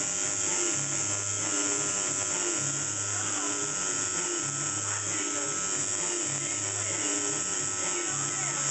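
Coil tattoo machine buzzing steadily as it needles ink into skin, with music playing in the background.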